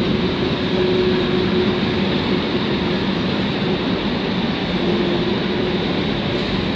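A long string of railway tank cars on a freight train rolling past, a steady noise of steel wheels running on the rails.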